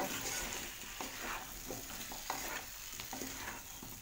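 Wooden spatula stirring and scraping chunks of potato, papaya and carrot around a kadai, in irregular strokes over a steady sizzle of vegetables sautéing in oil and spice paste.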